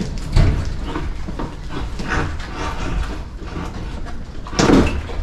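Clanking and rattling of metal parts as the outboard motor on the boat's stern is worked on, with a heavy knock about half a second in and a louder one near the end.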